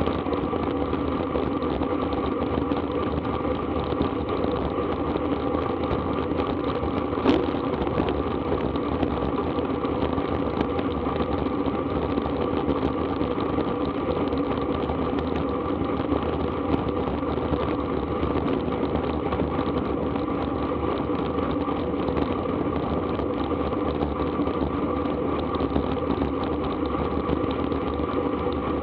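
Steady rush of wind over an action camera's microphone on a road bike moving at about 30 mph, with one sharp click about seven seconds in.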